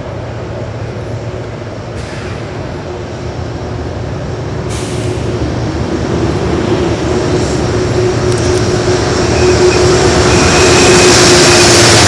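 Metro-North commuter train approaching along the tracks, its rumble and hiss growing steadily louder, with a steady hum running through it.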